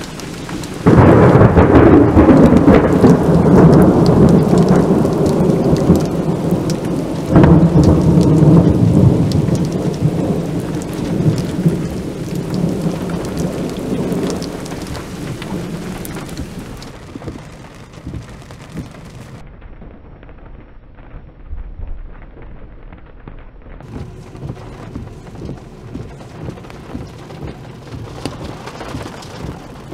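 Loud thunder from a close lightning strike: a sudden crack about a second in, a second crack about seven seconds in, then a long rumble that fades away. Rain falls throughout.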